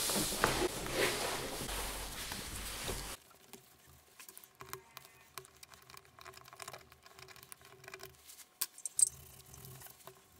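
A laptop display panel being handled on a cloth: a loud rustling scrape that stops abruptly about three seconds in, then faint scratching and light clicks of a small tool along the plastic bezel, with two sharp taps about nine seconds in.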